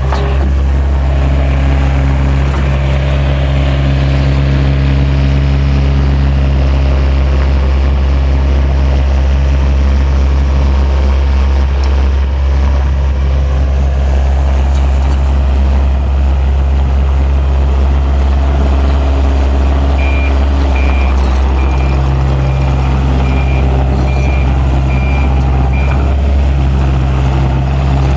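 Takeuchi TL130 skid steer's diesel engine running steadily under way, its pitch shifting slightly as the machine works. For several seconds near the end a backup alarm beeps repeatedly while the machine reverses.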